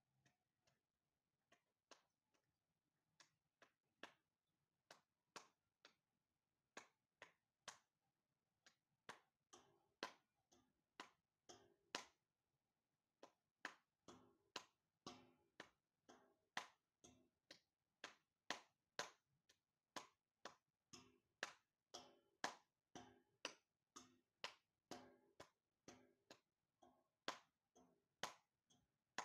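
Faint, irregular sharp clicks, sparse at first, then more frequent and louder from about ten seconds in, at roughly two a second.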